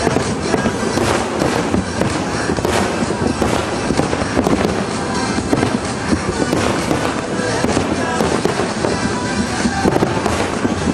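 Aerial firework shells bursting in a dense, continuous barrage of bangs and crackles.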